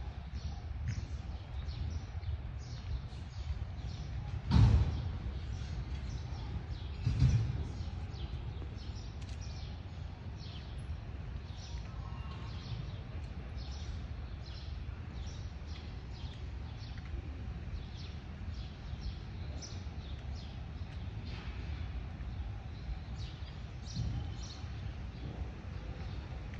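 Outdoor park ambience: a steady low rumble under many short, high bird chirps. Two louder thumps come about four and a half and seven seconds in.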